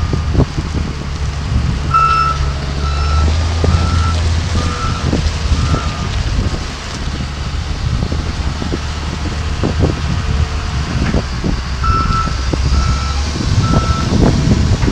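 John Deere 544K wheel loader's diesel engine running steadily, with its backup alarm beeping while it reverses: a run of about six beeps a little over half a second apart, then a few more near the end.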